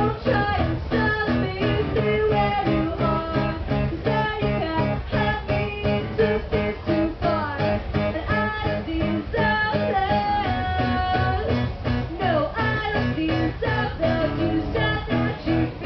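Live acoustic guitar strummed in a steady rhythm, playing the instrumental opening of an acoustic song.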